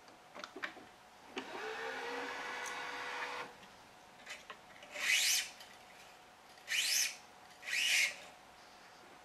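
A few light clicks, then the electric tensioner of a Gamma 6004 stringing machine runs for about two seconds with a steady hum. Then come three quick zips, each rising in pitch, as a badminton string is pulled through the racket's strings.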